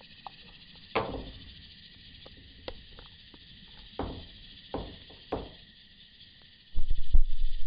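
Insects, crickets or katydids, trilling steadily. Several sharp knocks sound about one, four, five and five and a half seconds in, and a loud low rumble runs near the end.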